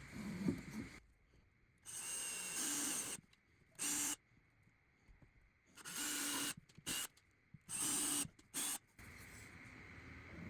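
Ryobi cordless drill running in short trigger bursts, about six of them: a long one about two seconds in, then shorter stops and starts, each starting and cutting off sharply.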